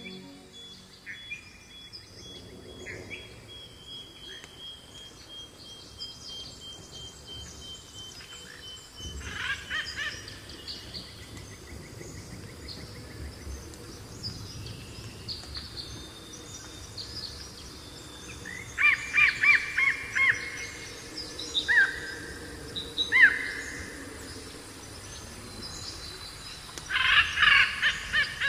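Forest soundscape of several birds calling and chirping over a low background hush. A thin high steady tone drifts slightly lower and stops about nine seconds in. Louder bursts of rapid chirping come in the second half.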